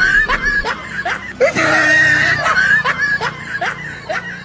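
A young dog squealing and yelping in fright: a high, wavering cry broken by short rising yelps, two or three a second, fading near the end.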